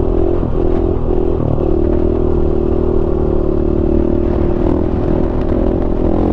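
Dirt bike engine running at high revs through a wheelie: its note wavers for the first second or so, then holds at one steady pitch, with wind rumbling over the rider's helmet mic.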